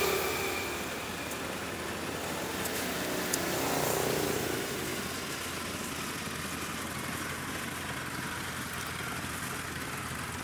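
Engine of a tracked rice-field machine laden with sacks of grain running steadily as it crawls across the stubble, swelling a little about four seconds in.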